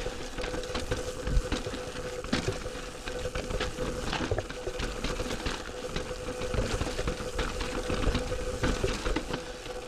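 Mountain bike riding over rocky singletrack: tyres rolling on dirt and rock with frequent clicks, knocks and rattles from the bike, over a steady faint hum.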